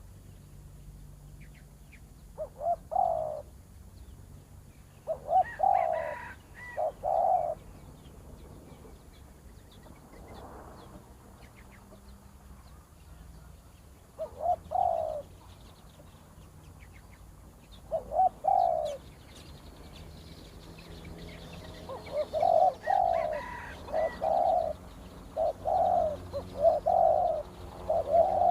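Spotted doves cooing in short repeated phrases. The phrases are spaced several seconds apart at first, then come thick and overlapping near the end. Faint chirps of small birds sound behind them.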